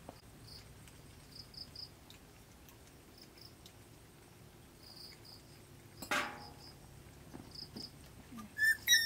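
Young puppies whimpering: a single short yelp about six seconds in, then a run of high, whistle-like squeaks starting near the end. Faint short high chirps come and go in the background.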